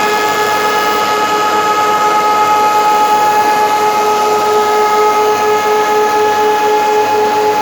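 Beam-profiling machine running, its spinning cutterheads giving a loud, steady whine over a rushing noise.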